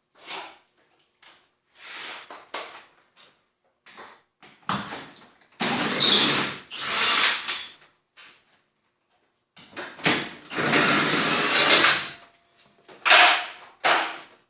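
Irregular bursts of metal scraping and clattering from hand work on the garage door's track and roller hardware, the longest lasting about two seconds near the end.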